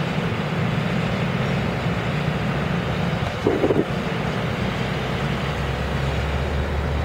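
Heavy vehicle engine running steadily, with a short higher tone about three and a half seconds in and a low hum growing stronger near the end.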